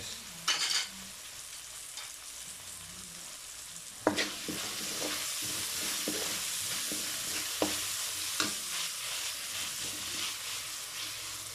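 Chopped garlic and onions sizzling in olive oil in an aluminium wok, sautéing until translucent, with a metal spatula scraping and clicking against the pan as they are stirred. The sizzle grows louder about four seconds in.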